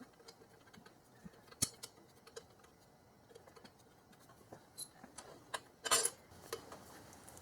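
Scattered light metallic clicks and taps of bolts being picked up and set into the bolt holes of an upper intake manifold, with a louder cluster of clicks about six seconds in.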